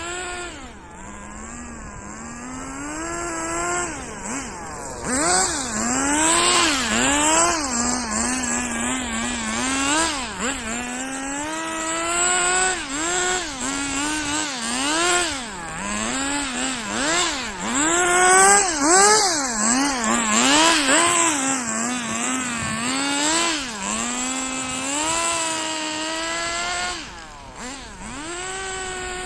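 Nitro RC drift car's small two-stroke glow engine revving up and down again and again, its high buzzing pitch rising and dropping every second or two, with short steadier stretches in between.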